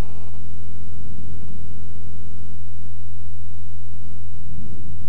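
Loud, steady electrical hum with a stack of fainter steady buzzing tones above it, unchanging throughout.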